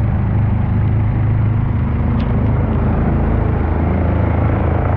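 Small boat outboard motor running steadily at a constant speed while the boat moves along the river.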